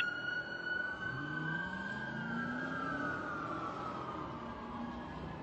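Fire apparatus siren on a wail, held high and then slowly falling in pitch, with a second siren tone falling alongside it. Under it a heavy truck engine revs up. There is one short, sharp burst at the very start.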